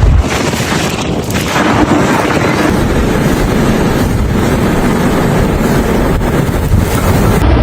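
Blizzard wind buffeting the microphone, a loud, continuous rushing noise that swells in gusts.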